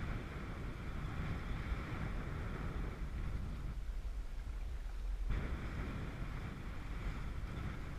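Wind buffeting the microphone as a low, steady rumble, over choppy water splashing and washing against the boat. The hiss of the water drops away for about a second and a half midway, then comes back suddenly.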